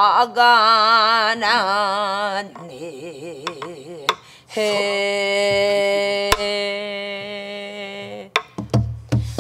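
Korean Namdo folk singing in the slow, shaken style, a woman's voice leading: wide vibrato on sustained notes, then one long held note from about halfway in. A buk barrel drum is struck with a stick a few times, most sharply about six seconds in.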